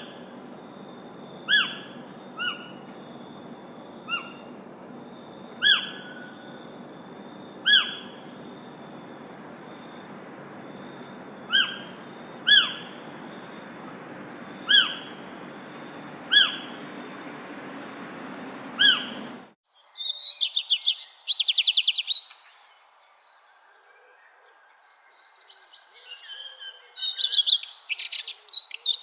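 Birds calling: a short falling call repeated every second or two over a steady hiss, then an abrupt cut about two-thirds of the way through to a different bird's rapid trill and more varied song near the end.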